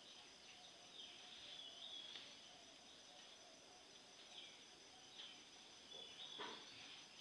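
Near silence: faint, steady, high-pitched insect chirring, with a few short chirps and a faint click near the end.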